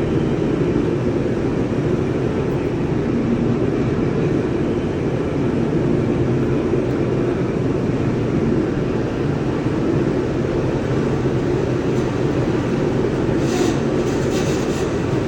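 Steady, loud low rumble of a steel plant's ladle refining furnace area, with a few brief hissing clicks near the end.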